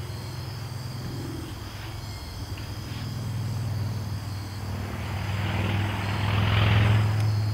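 A road vehicle driving past, its engine hum and tyre noise growing steadily louder and loudest near the end. Crickets chirp steadily behind it.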